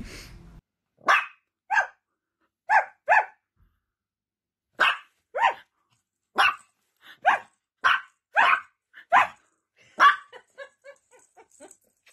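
Small white fluffy dog barking in a series of about a dozen sharp, separate barks, half a second to a second apart, followed near the end by several softer, quicker yips.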